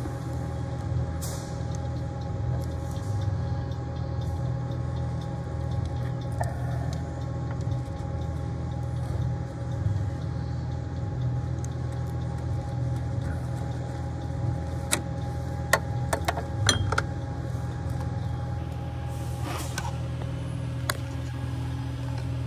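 A steady low machine hum, with a short cluster of sharp clicks and knocks about two-thirds of the way in.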